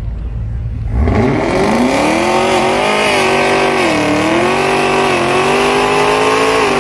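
Car engine revving hard about a second in and held at high revs through a burnout, dipping briefly midway, with the rear tyres spinning and squealing in a steady hiss.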